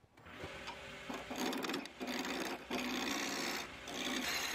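Wood lathe turning a wooden blank while a hand-held turning tool cuts it: a rasping, scraping cut comes in four stretches of about half a second to a second each, the first about a second in, with short breaks between, over the lathe's steady running.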